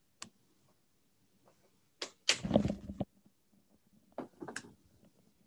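A door being opened and shut: a latch click, then a louder swish and thump about two seconds in, and a few smaller clicks near the end.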